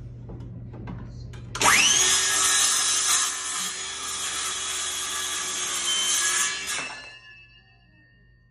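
Cordless circular saw spinning up with a sharply rising whine about a second and a half in, then cutting through a wooden door jamb for about five seconds to trim half an inch off its bottom, before winding down and stopping.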